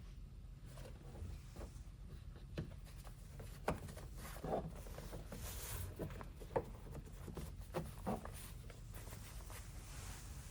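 Handling noises while fitting a magnetic window cover: scattered light clicks and taps with brief rustling, over a steady low hum.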